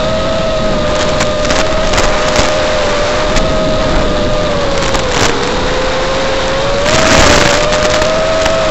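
Brushless motors of an Eachine TS215 racing quadcopter whining at a fairly steady pitch, which dips briefly about five seconds in and climbs back. The sound comes over the analog video link's audio, with constant hiss and crackles of static, the heaviest burst about seven seconds in.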